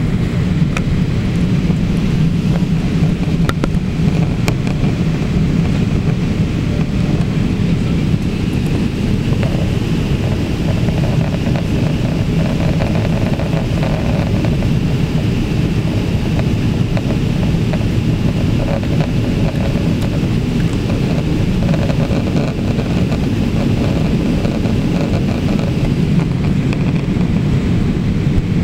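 Steady cabin noise inside a Boeing 787-8 in flight after takeoff: a loud, even rumble of engines and rushing air, heaviest low down, with a faint steady whine above it.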